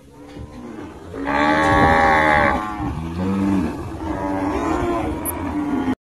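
Cattle mooing: a long, loud moo starting about a second in, followed by several more, lower moos.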